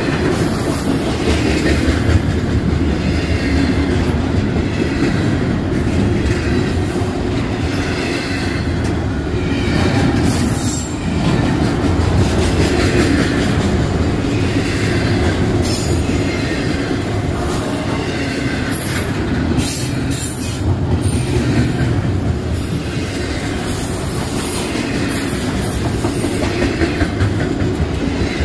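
Union Pacific doublestack intermodal train's well cars rolling past: a steady rumble of steel wheels on rail, with clickety-clack from the wheels and short high-pitched wheel squeals now and then.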